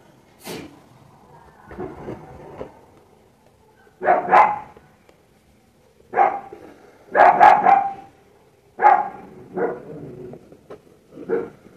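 A dog barking repeatedly in short, irregular bursts.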